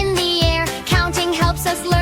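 Children's song music: a bright melody line, perhaps a singing voice, over a steady beat of about two beats a second.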